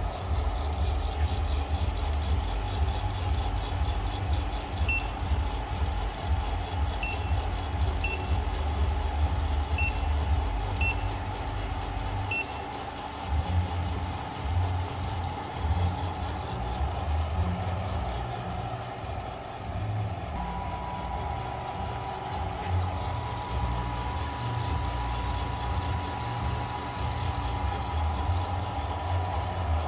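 Coffed SRE 500 electric coffee sample roaster running mid-roast: a steady low hum from its motor and exhaust fan. Six short, high electronic beeps come between about five and twelve seconds in, and a steady mid-pitched tone sets in about two-thirds of the way through.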